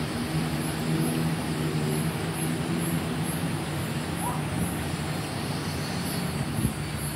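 A steady low engine drone, like a motor vehicle running, with a faint high chirp repeating about twice a second over it.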